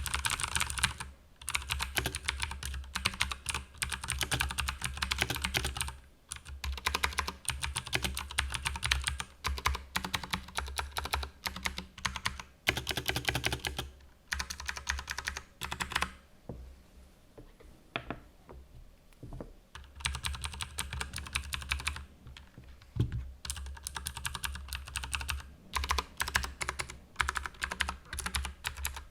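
Typing on an ASUS ROG Strix Scope TKL mechanical keyboard with clicky Cherry MX Blue switches: fast runs of keystrokes broken by short pauses, with a sparser lull of a few scattered keystrokes about sixteen to twenty seconds in.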